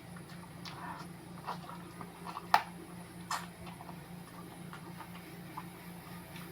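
Close-up eating of chicken feet: scattered wet clicks and smacks of chewing and sucking, the sharpest about two and a half seconds in and again about a second later, over a steady low hum.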